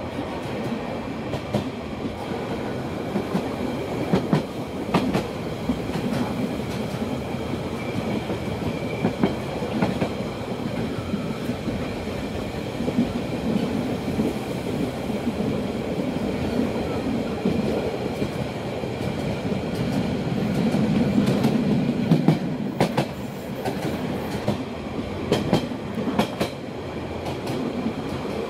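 A metre-gauge Rhaetian Railway train heard from its open observation car: a steady rumble of the wheels rolling on the track, with scattered sharp clicks and knocks, most of them a few seconds in and again near the end. The rumble swells a little about two-thirds of the way through.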